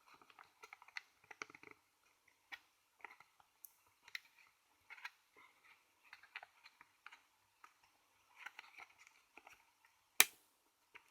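Hard plastic smartphone case being bent by hand: faint scattered clicks and creaks, then one sharp, loud snap about ten seconds in as the broken piece above the volume buttons breaks off.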